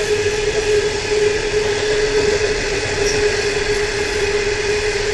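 A long freight train's hopper wagons rolling past, a steady rumble and clatter of wheels on rail with a constant high ringing tone running through it.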